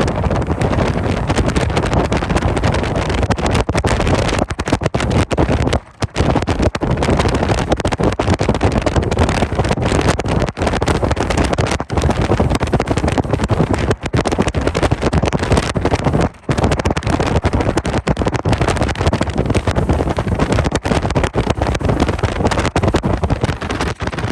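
Strong wind from the tornado's circulation buffeting the microphone: a loud, rough, unbroken rush that cuts out briefly twice.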